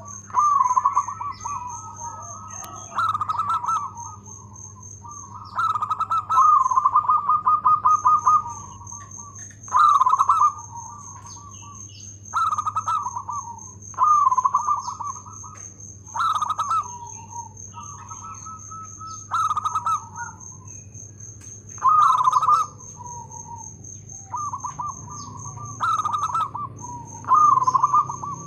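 Zebra dove (local perkutut) cooing: phrase after phrase of short, rapidly trilled coos at much the same pitch, each about a second long, with pauses of a second or two between them.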